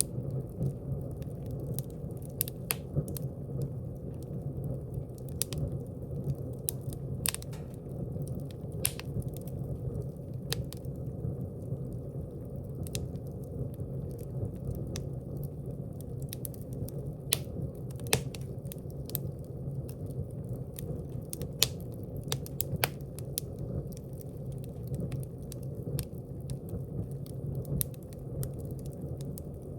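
Wood fire burning in a fireplace: a steady low rush of flames with frequent irregular crackles and sharp pops from the burning logs.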